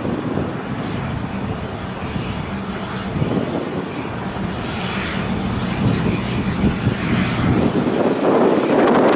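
Cessna Citation CJ2+ business jet's twin turbofan engines running as the jet rolls along the runway, a steady rumble that grows louder near the end.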